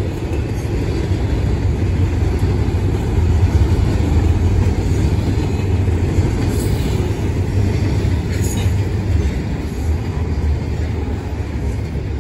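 Freight train cars rolling past, double-stack container well cars among them: a steady, continuous rumble of steel wheels on rail.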